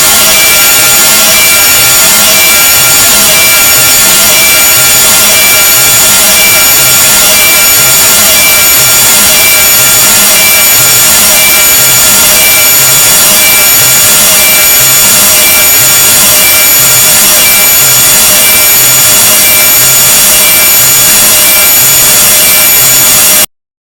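A very loud, harsh, grating noise sound effect: a dense rasping hiss laced with several piercing steady high tones over a low pulsing throb. It cuts off abruptly near the end.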